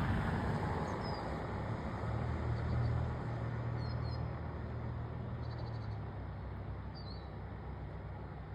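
Low steady hum of a motor under outdoor noise, with a few faint, short, high bird chirps.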